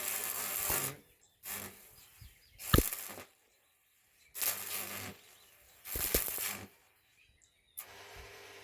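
Electric arc (stick) welding with a rod: the arc sizzles in about six short bursts with quiet gaps between, each time being struck and then going out.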